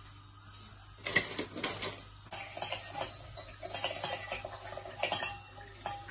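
A sudden clatter about a second in, then a wooden spoon stirring in a metal wok, scraping and knocking against the pan in quick irregular taps that set the metal ringing faintly.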